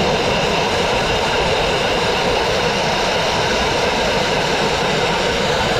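Dustless blasting nozzle firing wet crushed-glass abrasive at a painted brick wall: a loud, steady blast hiss as the media strips cement-backed masonry paint off the brick.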